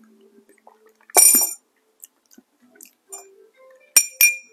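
Glassware clinking: one ringing clink about a second in, then two quick clinks near the end.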